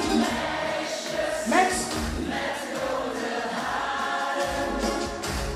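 Audience singing along together to a schlager chorus over the backing music, many voices at once with no lead vocal.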